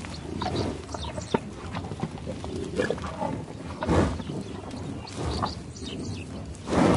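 A herd of water buffalo swimming in a river: irregular splashing and animal sounds, with a louder noisy burst about four seconds in and another near the end.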